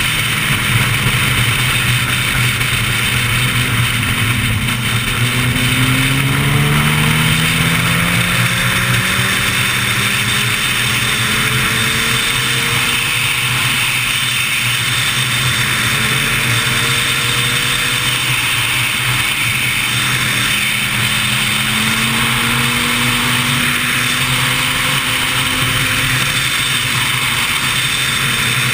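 Wind rushing over a motorcycle-mounted action camera at highway speed, with a sport bike's engine rising in pitch several times as it accelerates.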